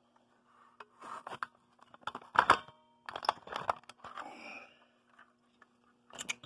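Clicks, rattles and scraping from a Notifier BGX-101L fire alarm pull station being handled with its key in the lock, in several short bursts, the loudest about two and a half seconds in. A faint steady hum runs underneath.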